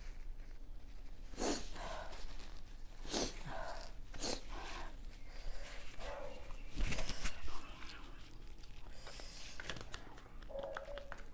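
A person eating very hot chili-laden food, with a few short sharp sniffs and gasping breaths drawn in against the heat, and some chewing between them.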